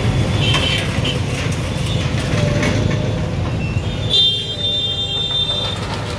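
Heavy diesel engine running steadily, with a brief high-pitched tone about four seconds in.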